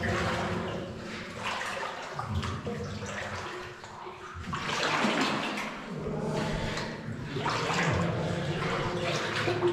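Water sloshing and swishing around a person's legs as they wade through the flooded mine adit, swelling and fading in several surges as they stride forward.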